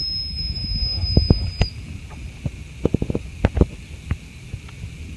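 A steady high whistle-like tone that cuts off about two seconds in, over a low rumble of wind on the microphone, followed by a run of sharp knocks and taps from the phone camera being handled as it pans down from the sky.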